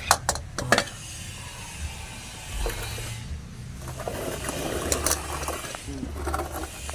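Hand tools and metal parts clinking during removal of a starter motor: a few sharp clicks in the first second, then rattling and scraping of metal about halfway through.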